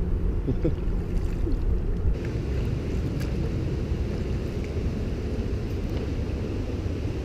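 Steady wind rumble on the microphone over water sloshing around an inflatable canoe being paddled on a river, with a few faint knocks.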